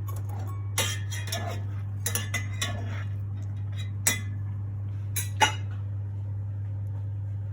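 Metal cutlery clinking and knocking against dishes in a handful of separate strikes, the sharpest about four and five and a half seconds in, over a steady low hum.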